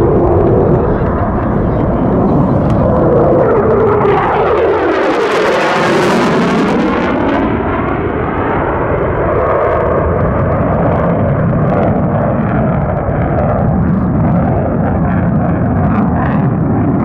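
Lockheed Martin F-35A Lightning II's single Pratt & Whitney F135 jet engine at display power with afterburner lit, a loud continuous jet roar. It swells into a hissing rush about five seconds in, then settles back to a steady roar.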